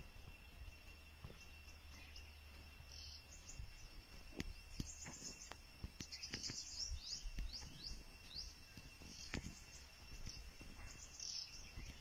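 Faint jungle-edge ambience: small birds chirping in quick high bursts from about three seconds in, over a steady high insect tone, with scattered soft clicks.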